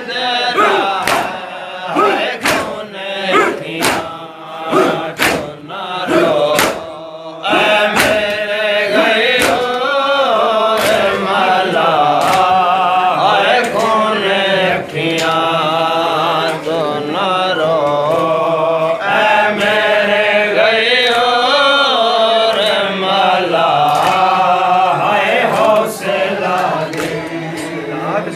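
Male voices chanting a nauha, a Shia lament for Hussain, with regular chest-beating (matam) strikes keeping time. The chanting becomes fuller and louder about seven seconds in.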